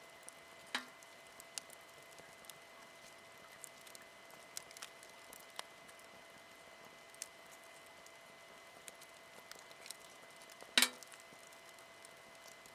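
Wood campfire burning quietly, with scattered crackles and pops of the burning wood and one louder pop near the end.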